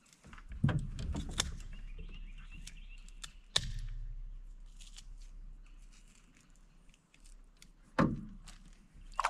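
Knocks and bumps on a small fishing boat, mixed with light splashing, as someone leans over the side and works with their hands in the water. The sharpest knocks come just under a second in, at about three and a half seconds and at about eight seconds.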